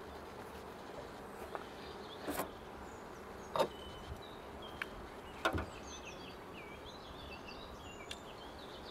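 Small birds chirping in the background, with a few short knocks and clicks, about two and a half, three and a half and five and a half seconds in, from a beehive's lid being handled.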